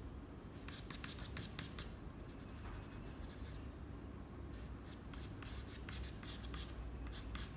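Soft pastel stick scratching across pastel paper in short quick strokes, coming in three runs with brief pauses between.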